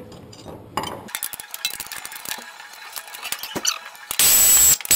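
Small clicks and rattles of a tool being fitted to an underbody pan screw. About four seconds in, a power driver runs in two short bursts with a steady high whine, backing the screw out.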